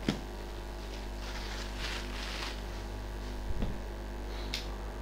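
Clear plastic wrap being cut and pulled off a new fabric tool bag: a sharp click just as it starts, then crinkling rustles of the plastic, with a soft knock and another click later. A steady mains hum runs underneath.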